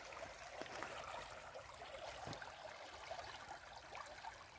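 Faint, steady rush of muddy floodwater flowing fast in a swollen river.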